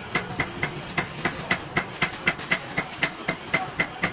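A machine clicking steadily and evenly, about four clicks a second, over a constant hiss.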